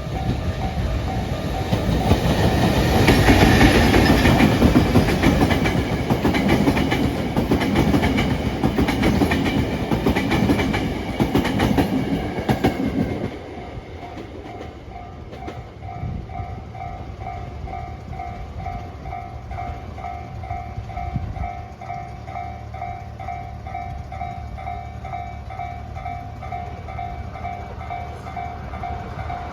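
JNR EF65 2000-series electric locomotive hauling unpowered Tokyo Metro 2000-series subway cars passes close by, with loud rumbling and wheels clacking over rail joints. The train noise cuts off about 13 seconds in. A Japanese level-crossing bell dings steadily at about two to three strokes a second throughout.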